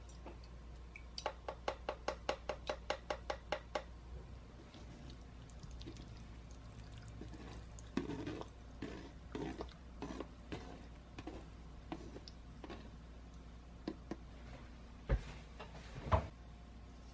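A stainless mesh strainer of drained, cooked black tapioca pearls tapped against a glass bowl in a quick run of about a dozen light, ringing taps, about five a second. Then the sticky pearls are scraped and tipped wetly from the strainer into a glass bowl, with soft squelches and clicks, and two sharper knocks near the end.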